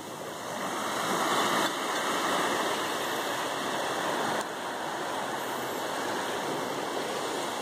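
Steady rushing of surf washing onto the beach, stepping down in level a couple of times.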